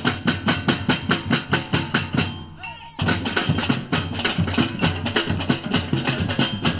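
Batucada samba drum ensemble playing a quick, even beat. Near the middle it breaks off for a moment, then the full group comes back in louder and denser.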